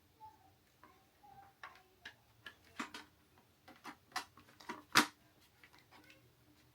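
Irregular small clicks and taps of hard plastic and metal console parts being handled and fitted back together during Xbox Series S reassembly. One sharper click about five seconds in, as a part seats in place.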